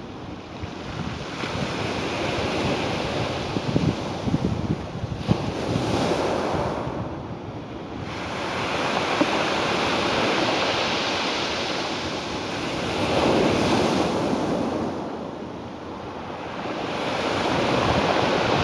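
Ocean surf breaking and washing on a shore, swelling and easing every few seconds.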